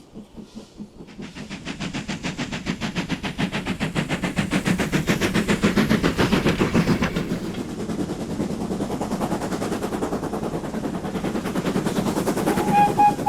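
Steam locomotive working hard, its exhaust beats coming in a rapid, even chuff that grows much louder over the first few seconds as it nears. A short, pulsed high tone sounds near the end.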